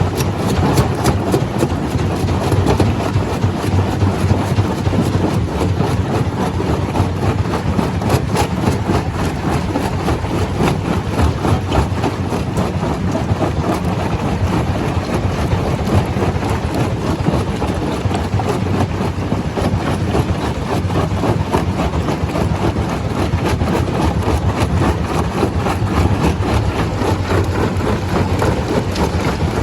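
Stone crusher machine running: a steady, heavy mechanical rumble with a dense, continuous clatter throughout.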